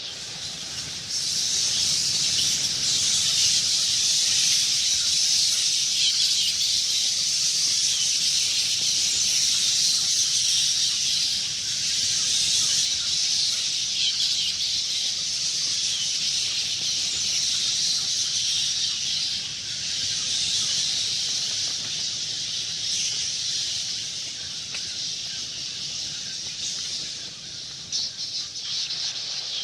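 A swarm of bats chittering: a dense, continuous mass of high-pitched squeaks and clicks. It swells about a second in and eases slightly in the last few seconds.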